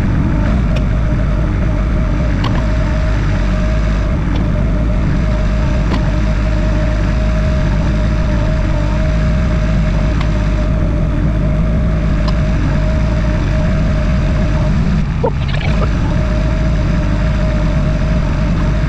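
A motor running steadily, a dense low rumble with a constant whining tone over it, briefly disturbed about fifteen seconds in.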